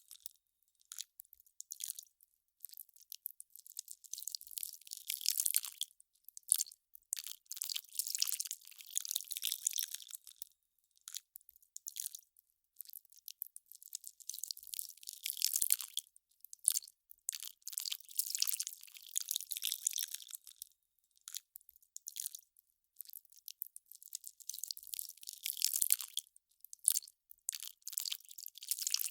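Melting ice crackling: thin, high crackles in irregular clusters a second or two long, with short quiet gaps between.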